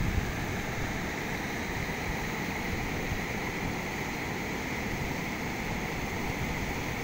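Steady rushing of river water pouring over a low concrete weir.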